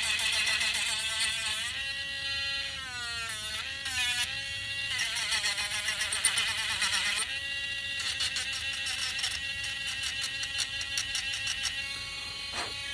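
Small electric bench sander running with a steady motor whine that dips in pitch about three seconds in as the wood is pressed against the sandpaper, then recovers, with the rasp of sanding; music plays underneath.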